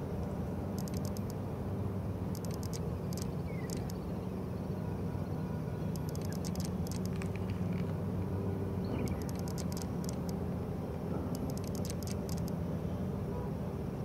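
Steady low hum of distant engines, with short bursts of rapid, high-pitched ticking every second or two.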